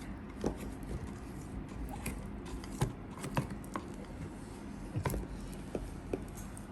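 A stirring utensil clicking and scraping against the sides of a container as a liquid slime mixture is stirred slowly, giving about eight irregular small knocks.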